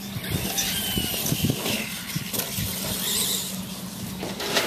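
Radio-controlled Clod Buster monster truck's electric motors and gears whining steadily as it drives across grass, with one sharp knock near the end.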